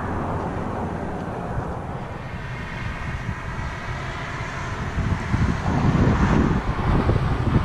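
Steady outdoor rumble of road traffic and wind on the microphone, turning louder and gustier about five seconds in.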